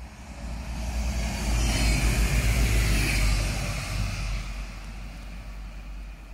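A vehicle passing close by: a rush of noise that swells over the first couple of seconds, peaks, then fades away over the next few.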